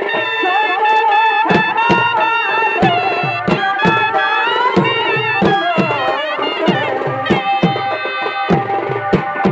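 Purulia Chhau dance accompaniment: a shehnai plays a wavering, ornamented melody over a steady pattern of dhol drum strokes.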